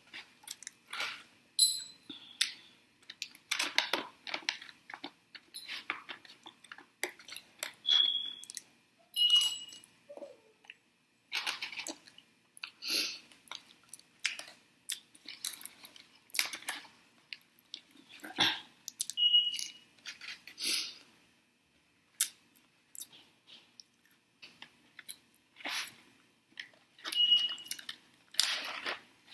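Close-up chewing of french fries, in irregular short bouts with brief pauses.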